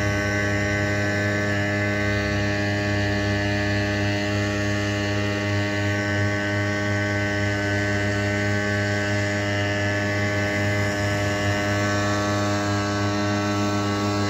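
An engine running at a constant speed: a steady, unchanging droning hum with a pitched tone.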